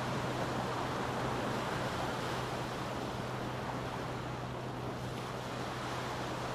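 Small waves washing up a sandy beach: a steady surf wash, a little stronger in the first couple of seconds, with a constant low hum underneath.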